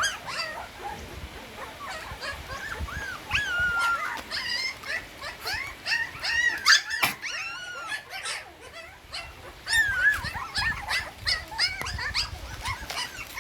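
A litter of nursing puppies whimpering and squealing: many short, high cries that rise and fall, overlapping one another throughout, as the pups jostle for milk.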